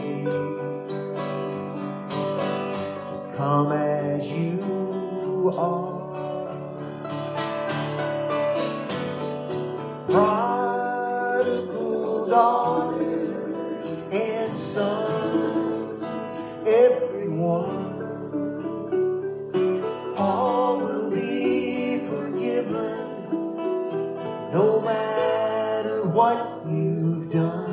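Live country-style song on acoustic guitar and mandolin, with a woman singing the lead vocal.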